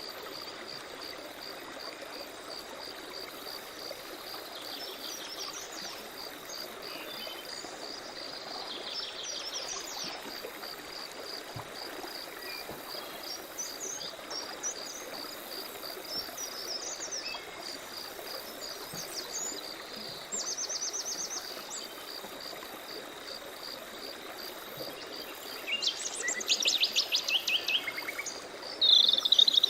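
Forest ambience: small birds chirping and trilling over a steady, fast-pulsing, high insect call and a soft even hiss. The loudest bird trills, rapid and repeated, come near the end.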